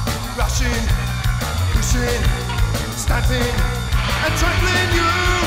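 Rock music from a full band: drums keeping a steady beat, bass and electric guitar, with a lead line sliding up and down in pitch over them and no sung words.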